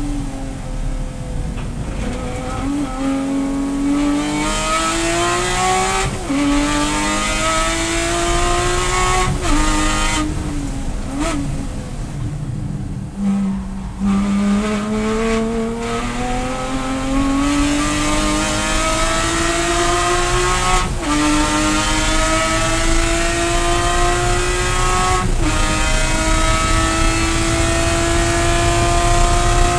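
Porsche Cayman GT4 race car's 3.8-litre flat-six heard from inside the cockpit, accelerating hard through the gears. Its pitch climbs and falls back at three upshifts in the first ten seconds. About halfway it slows with a run of quick downshifts, then pulls up through two more upshifts into a high, slowly rising note near 7,000 rpm at full throttle in fifth gear.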